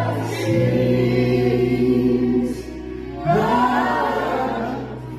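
Music with choir-like singing over a held low bass note; a louder new sung phrase comes in about three seconds in.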